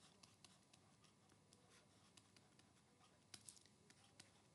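Near silence, broken by faint scattered clicks and taps of a stylus writing on a pen tablet, with a small cluster of them about three and a half seconds in.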